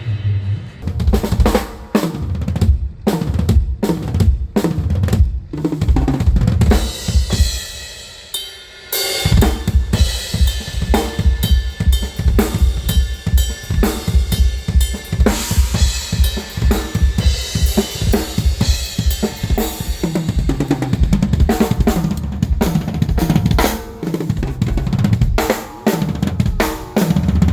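A drum kit played at a sound check: separate heavy strikes for the first several seconds, a short break about eight seconds in, then a steady fast beat of kick, snare and cymbals.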